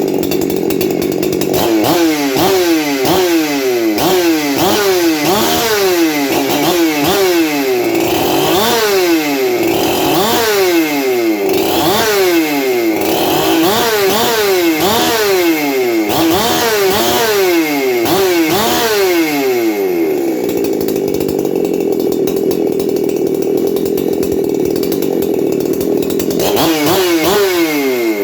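A Husqvarna 372-clone two-stroke chainsaw fitted with a dual-port muffler, run at high revs. Its pitch rises and falls rapidly over and over for most of the time, holds steady for several seconds, then starts swinging again near the end.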